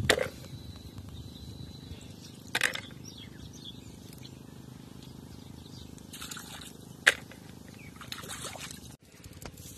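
Small splashes and clicks of water and stones as freshwater snails are picked by hand off rocks in shallow river water. There are a few sharp splashes, the loudest about seven seconds in, over a quiet steady outdoor background.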